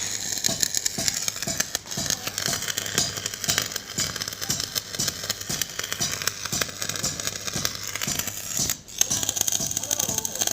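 Electric arc welding crackling and sizzling steadily as weld metal is laid along the edge of an iron paata to build the edge back up. The arc breaks off briefly about nine seconds in, then is struck again.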